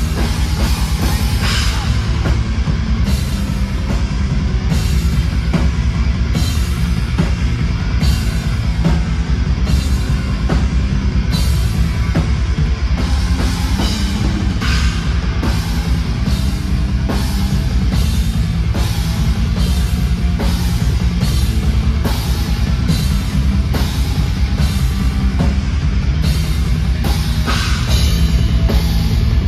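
Atmospheric black metal band playing live and loud: distorted guitars and bass over a drum kit, with cymbals struck at a steady pace.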